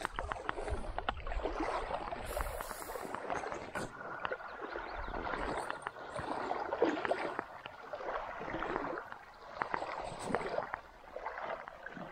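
Shallow creek water sloshing and gurgling in uneven swells, with small clicks and splashes mixed in.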